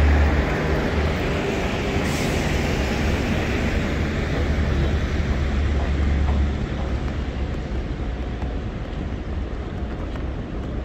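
City street traffic noise, a steady hiss of passing vehicles over a deep rumble that eases about six and a half seconds in.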